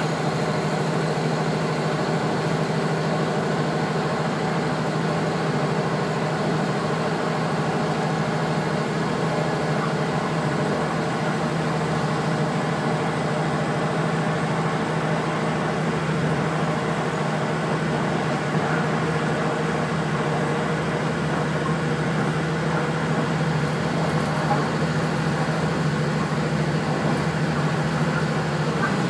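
Kashima Rinkai Railway 6000-series diesel railcar heard from inside the cabin while running: a steady engine drone with wheel and rail noise.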